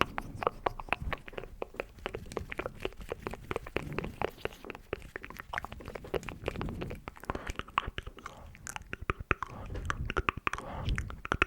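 Close-miked ASMR mouth sounds: a rapid, uneven run of wet lip and tongue clicks and smacks.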